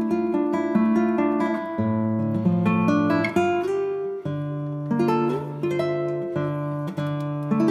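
Background music: acoustic guitar, plucked notes and chords following one another steadily.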